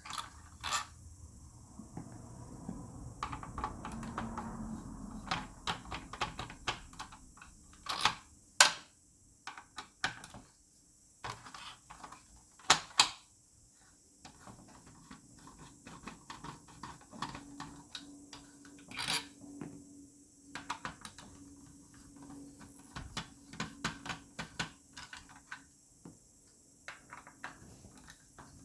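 Irregular clicks, taps and knocks of plastic projector parts being handled and pulled apart, with a few louder knocks along the way.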